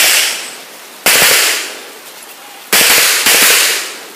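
Handgun shots, each sharp crack followed by a short ringing echo: one about a second in, then two more a little over half a second apart near the end, with the tail of a shot fired just before.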